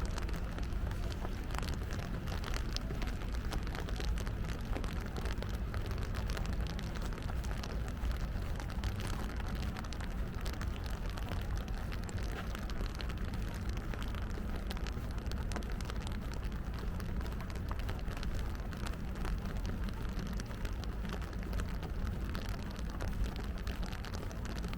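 Steady rain falling, with a dense patter of fine drop ticks over a low, steady rumble of city background.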